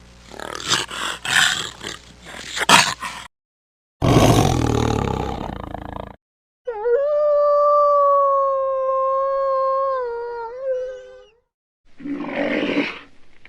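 A series of separate animal calls cut one after another: rough, noisy roars and growls in the first half, then one long, steady, pitched call lasting about four and a half seconds, then a short rough call near the end.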